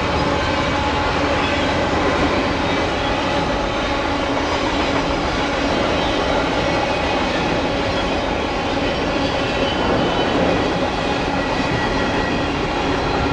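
A train rolling past, a loud, steady rumble of wheels on rail, with faint high steady whining tones above it.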